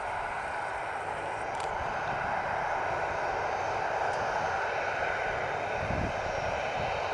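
Douglas DC-8 taxiing on the ground: its turbofan engines run steadily at low power, a continuous rush of engine noise with a faint steady whine.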